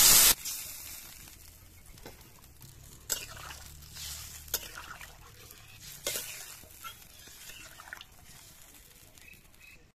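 Loud sizzling hiss of water hitting the hot pan of fried giant taro and potatoes, cutting off just after the start. Then a metal spatula stirs the watery curry, scraping and knocking against the metal pan, with sharper knocks about three, four and a half and six seconds in.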